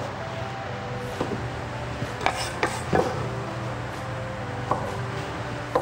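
Metal bench scraper chopping down through scone dough onto a wooden butcher block: about five sharp knocks at uneven intervals, over a steady low hum.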